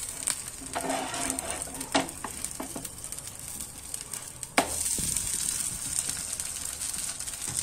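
Dosa batter with eggplant slices sizzling in oil on a hot tawa, a steady frying hiss, with the clicks and scrapes of a spatula as the dosa is turned over. A sharp click comes about four and a half seconds in, after which the sizzle is louder.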